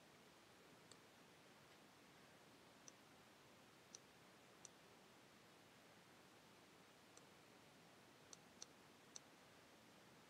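Near silence: faint room tone with about eight short, faint clicks of a computer mouse, spaced irregularly.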